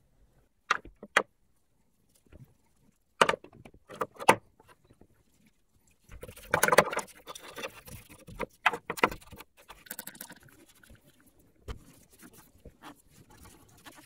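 Small metal headset bearing cups clinking against each other and onto a plastic work tray in a few sharp clicks. A couple of seconds later comes a spell of brush scrubbing, then more clicks and light rustling as the greasy parts are cleaned.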